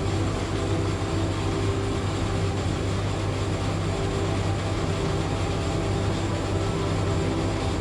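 A workshop machine running steadily, a continuous loud drone with a low hum that cuts off just at the end.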